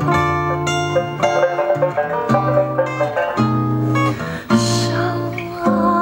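Sanxian, acoustic guitar and double bass playing jazz together: plucked melody notes and chords over a line of low bass notes, with sliding pitches near the end.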